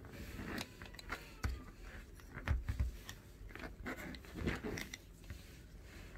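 Handling noise of small circuit boards and wires: scattered light clicks, taps and crackles as cables are moved and a connector is pushed onto the board, with a few low thumps.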